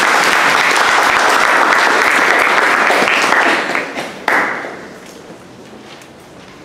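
Audience applauding, steady for the first three and a half seconds, then dying away within about a second and a half, with one last sharp burst just after four seconds.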